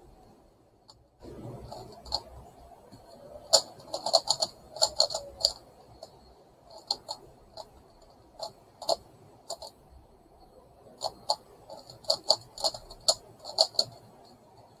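Megaminx puzzle being turned by hand: irregular runs of sharp plastic clicks as its faces are twisted, with short pauses between runs.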